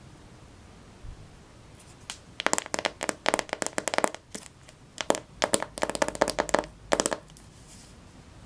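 Plastic packaging crinkling and crackling in quick, irregular bursts as it is handled and pulled off the AirPods box. The crackling runs from about two seconds in to about seven seconds in.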